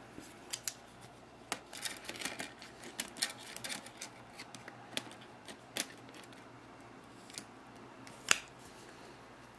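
Screwdriver and needle-nose pliers clicking and scraping on a small Nylock bolt and nut as they tighten an RC crawler's upper A-arm. The light, irregular metal clicks come thickest in the first half, with one sharper click near the end.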